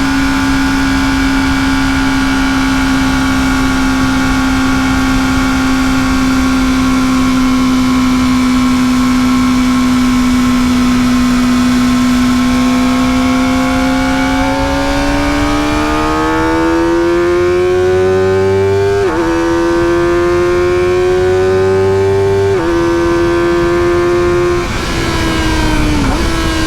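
Kawasaki ZX-4RR's inline-four engine through its stock exhaust, holding steady revs at a cruise for about half the time, then accelerating with its pitch climbing. The climb is broken twice by sudden drops in pitch as it shifts up, and the note dips again near the end, over a steady rush of wind.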